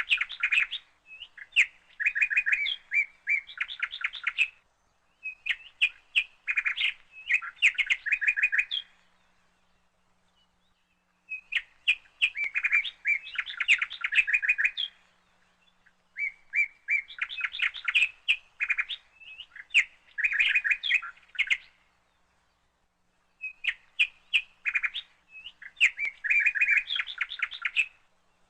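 Songbird chirping: bouts of rapid, repeated chirps and trills a few seconds long, separated by short pauses.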